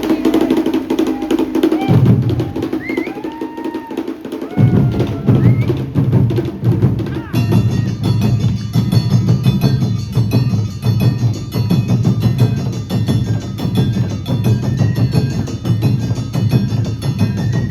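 Awa Odori band playing: drums beat a steady rhythm from about four seconds in, and a high metallic gong-like ringing joins about seven seconds in, over pitched melody lines at the start.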